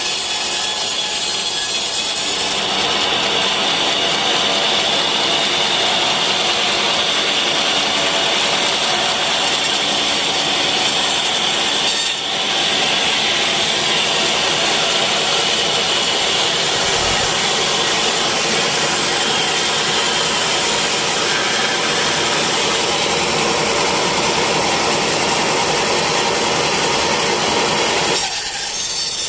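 Sawmill saw cutting through teak wood, a loud steady sawing sound that dips briefly about twelve seconds in and changes shortly before the end.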